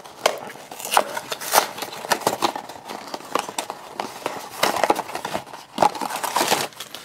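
Small Funko Mystery Minis cardboard box being pried open by hand, its stiff end flap scraping and tearing with an irregular run of sharp clicks and short scratches.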